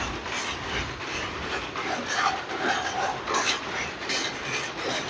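Continuous mechanical clatter with irregular clicks and metallic knocks, in a loom workshop where loom parts and bolts are being handled.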